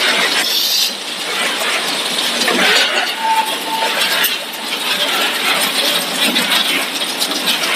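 Fried snack production line running: wire-mesh and cleated conveyors carrying fried bugle snacks, a steady machinery noise with many small clicks. A short steady tone sounds a little past three seconds in.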